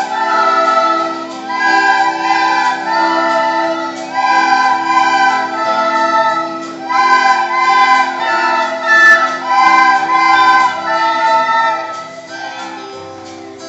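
A class of children playing soprano recorders together, a tune in phrases of held notes, which stops about twelve seconds in.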